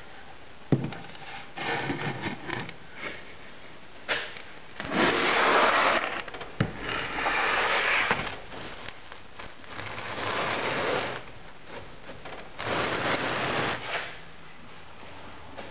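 Wooden moulding flask and pattern being handled on a workbench: a few sharp knocks and several long scrapes of wood sliding over the bench top, the longest a few seconds in.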